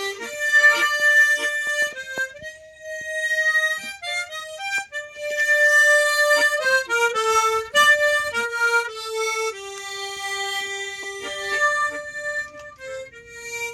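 Harmonica playing a slow melody, one note at a time, with several long held notes.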